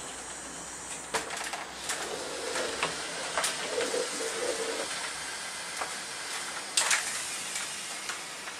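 Hoover steam mop heating up and starting to make steam: a steady hiss with a faint hum that comes and goes, and a few light knocks.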